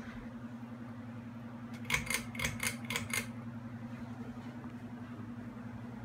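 Wobbly ceiling fan running with a steady, quickly pulsing motor hum. About two seconds in comes a quick burst of about six sharp rattling clicks.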